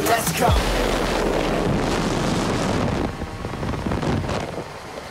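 Wind rushing over the microphone, with a small motor scooter's engine running as it rides past. The sound drops noticeably about three seconds in.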